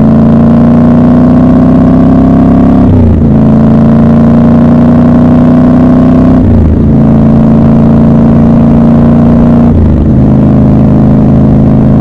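Triumph Scrambler 1200 XC's parallel-twin engine pulling steadily under way. The pitch climbs slowly and drops at three upshifts, about every three seconds.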